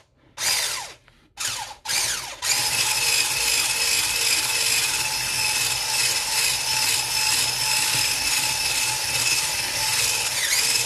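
Electric hand mixer with whisk beaters churning a thick spread. It starts in a few short bursts, each spinning up in pitch, then runs steadily from about two and a half seconds in.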